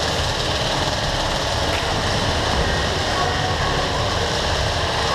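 Continuous rattle of airsoft electric guns firing on full auto, several at once, a steady mechanical racket without pause.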